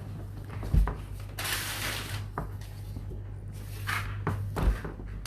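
Lower freezer compartment of a fridge freezer being opened: two low thumps, one near the start and one near the end, and a short sliding rush in between, as of a freezer drawer being pulled out. A steady low hum runs underneath.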